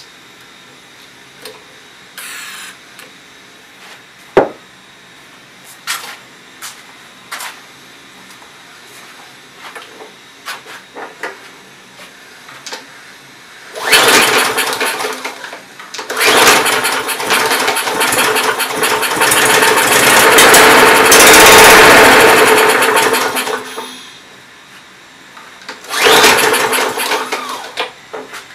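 Briggs & Stratton single-cylinder lawn mower engine being pull-started, after a sharp knock about four seconds in: it fires briefly, then runs for about eight seconds, swelling and then dying away, and fires briefly once more near the end. It will not keep running because the carburettor's throttle butterfly is fitted the wrong way round, so it isn't getting throttle.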